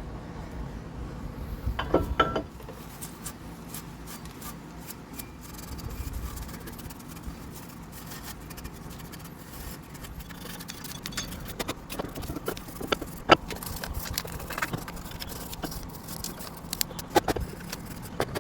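Scattered metallic clicks and knocks with light scraping, as of hand tools on car brake parts, over a low steady hum.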